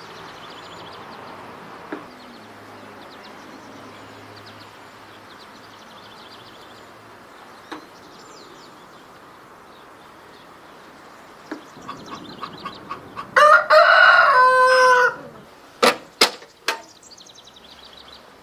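A rooster crows once, loud and for about two seconds, about three-quarters of the way through, over a faint steady background with small bird chirps. A few sharp clicks follow shortly after.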